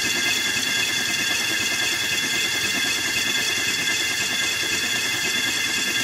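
Starter motor spinning over a rebuilt Ford Ranger 3.2 five-cylinder diesel on an engine stand, with the injectors out so there is no compression: a steady, even cranking whine. The engine is being turned over to prime the oil pump and push oil around before first start.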